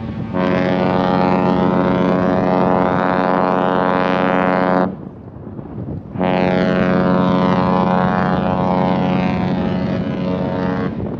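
A cruise ship's horn sounding two long, deep blasts, each about four and a half seconds, with a short pause between them. These are the prolonged blasts a ship gives as it leaves its berth and gets underway.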